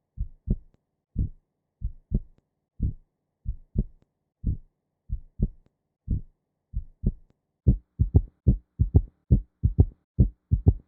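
Heart sounds with an S3: a triple 'gallop' rhythm of short low thuds, S1 and S2 followed closely by the extra S3 from rapid ventricular filling in early diastole. The rhythm plays slowly at first, then speeds up to real-time pace about seven and a half seconds in.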